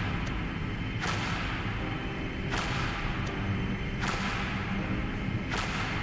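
Background music with a sharp, echoing percussion hit every second and a half over low sustained notes.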